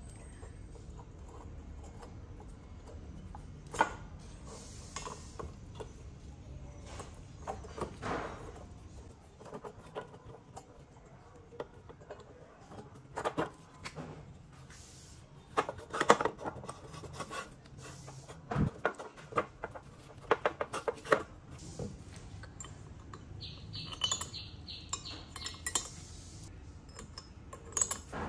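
Metal engine parts of a Stihl chainsaw clinking and knocking as the cylinder is worked down over the piston and seated on the crankcase: scattered sharp taps and clinks, busiest in the middle, with a brief ringing scrape about 24 seconds in.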